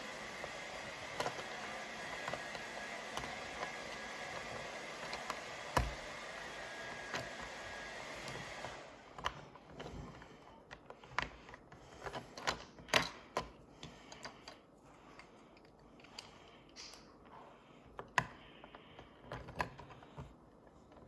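Small plastic toy pieces clicking and tapping irregularly as they are handled and fitted together. A steady hiss runs underneath for the first half and then drops away.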